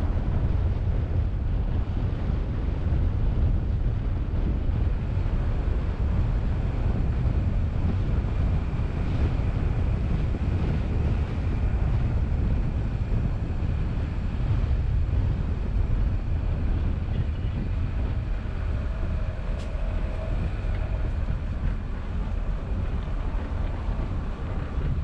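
Low, steady rumble of a car driving, with wind noise buffeting the microphone.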